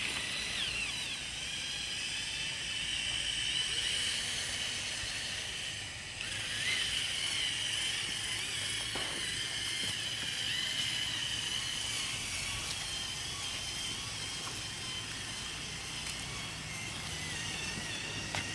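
Small electric gear motors of a homemade RC tractor whining as it drives through loose sand and pushes it with its front blade. The high whine wavers a little in pitch and drops out briefly about six seconds in before picking up again.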